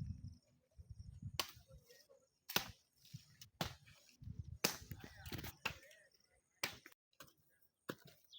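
A series of sharp knocks or chopping strikes, roughly one a second with some gaps, with faint voices between them.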